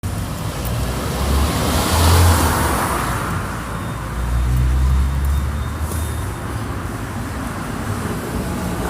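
Yamaha MT-09 inline three-cylinder engine running with a deep exhaust rumble, swelling louder twice, about two seconds in and again around five seconds in, as it is revved.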